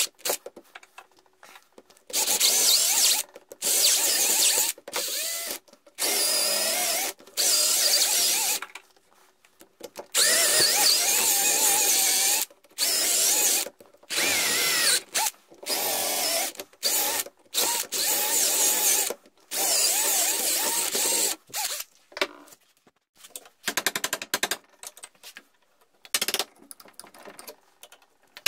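Handheld electric drill boring out the old wooden handle stuck in an axe head's eye, run in about a dozen short bursts of one to two seconds, its pitch wavering as the bit bites into the wood. Over the last few seconds the drilling stops and lighter scattered clicks and scrapes follow as the loosened wood is picked out.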